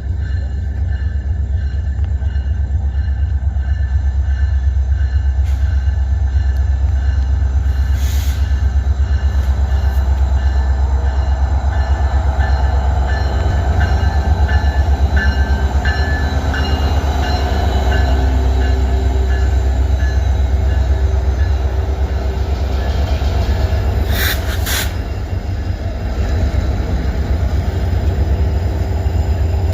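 Passenger train with its diesel locomotive arriving at the station: a loud steady low rumble with thin steady higher tones over it, and a few sharp knocks near the middle and later on.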